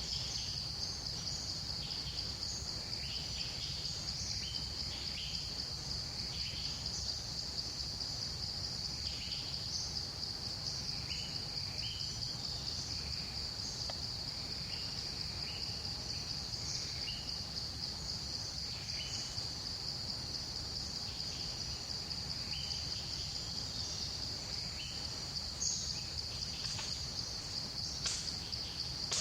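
Steady, unbroken high-pitched drone of an insect chorus, with scattered short chirps throughout and a low rumble underneath.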